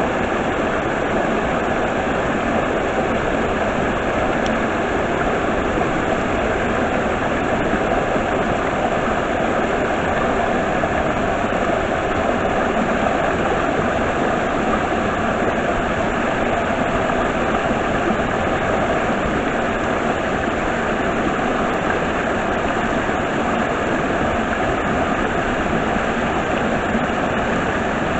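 Stream water rushing at a waterfall: a steady, unbroken flow of water.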